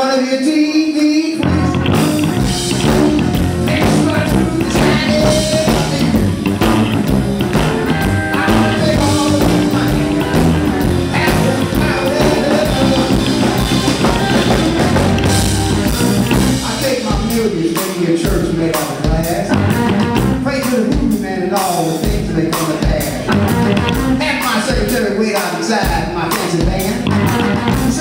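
Live electric blues band playing, led by a triple-neck electric guitar over bass and drums. The low bass comes in about a second and a half in.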